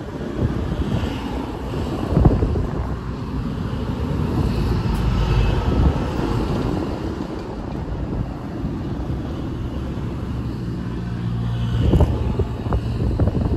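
Outdoor wind rumble on the microphone with the hum of a vehicle engine, which builds about ten seconds in; a couple of short knocks, the loudest about two seconds in.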